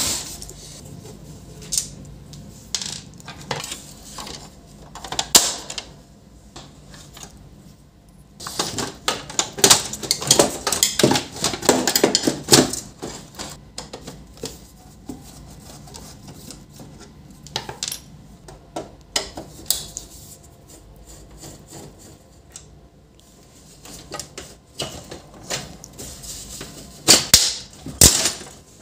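Plastic and sheet-metal parts of an HP LaserJet M501 printer clicking, knocking and rattling as it is taken apart by hand and with a screwdriver. The clatter comes in a dense run about a third of the way in and again near the end, with scattered single clicks between.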